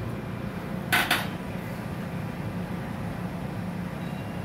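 Steady low hum of a SEPTA Regional Rail car standing at a platform, with a sharp double clank about a second in as the vestibule side door shuts.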